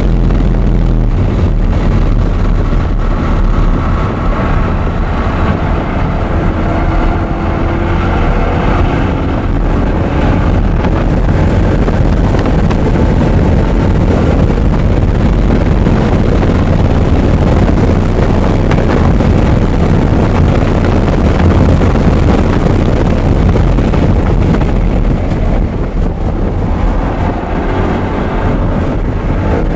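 Audi R8's V8 engine driven hard at speed on a race track, buried in heavy wind and road noise on the microphone. Its pitch rises in a few sweeps as it accelerates, most clearly in the first third and again near the end.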